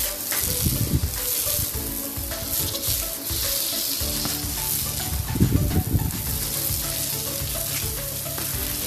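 Steady hiss of water from a garden hose spraying onto a tiled floor, broken by low irregular thumps about a second in and again around five to six seconds.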